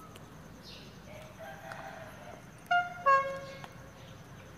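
Two short blasts of a train horn, a brief higher note and then a longer lower one, about halfway through.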